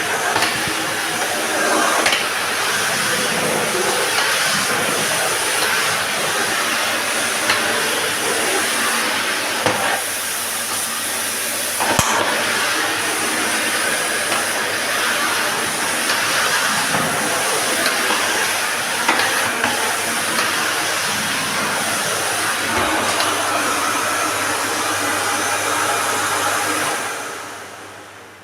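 Electrolux Ultrasilencer bagged vacuum cleaner running with a steady rushing hiss of suction, with a few sharp knocks along the way. The noise dies away near the end.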